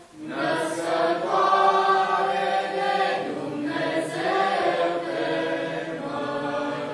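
A choir singing a slow hymn in long held notes, with short breaks between phrases about three and four seconds in.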